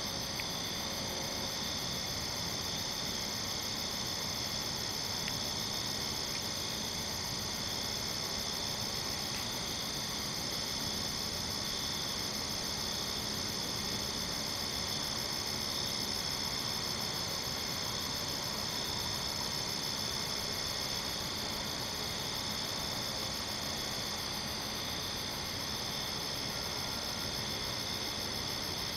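Steady night chorus of insects, crickets and katydids, singing in several overlapping high pitches, with a fast pulsing trill on top.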